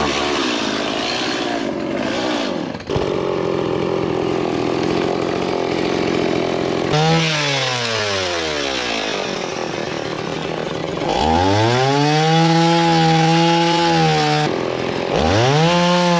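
Stihl MS 170 two-stroke chainsaw running and cutting a tree limb, its chain newly refitted the right way round after being on backwards. The engine revs up and down: its pitch falls off gradually about seven seconds in, climbs back to a steady high rev around eleven seconds, dips briefly and revs up again near the end.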